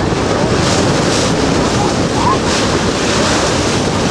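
Steady, loud wind buffeting the microphone over the rush and splash of sea water at sea.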